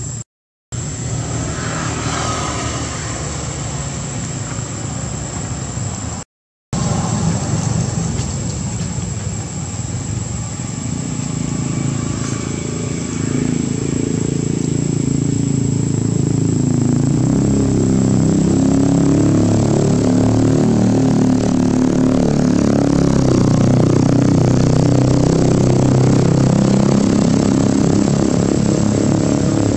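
An engine droning steadily, growing louder from about halfway through.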